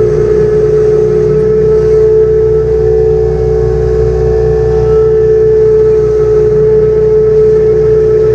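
Farm machinery engine running steadily, with a loud constant whine over an evenly pulsing low engine note.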